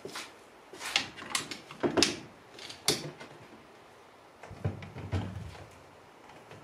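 A string of short knocks and clicks, roughly one a second over the first three seconds, then a few softer, duller knocks about five seconds in.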